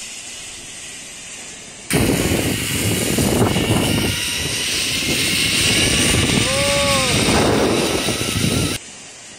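Wind rushing over the microphone of a camera carried by a rider speeding down a zip line, with the tandem pulley running along the steel cable. It starts suddenly about two seconds in and cuts off suddenly near the end, with a brief shout from the rider partway through.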